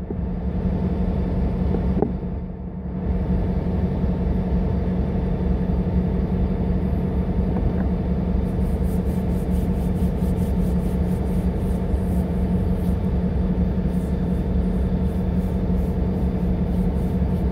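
Diesel locomotive idling: a steady low engine rumble with an even hum.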